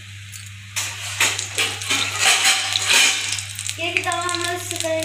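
Battered paneer slices deep-frying in hot oil in a kadai. A loud burst of crackling sizzle starts about a second in, as another slice goes into the oil, and eases off after a few seconds. Background music with a held sung note plays before the burst and again near the end.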